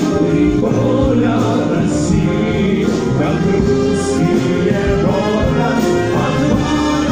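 Massed brass band playing, with voices singing over the band.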